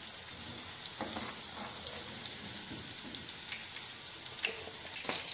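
Cornstarch-coated chicken pieces shallow-frying in a pan of hot vegetable oil: a steady sizzle with a few small crackles.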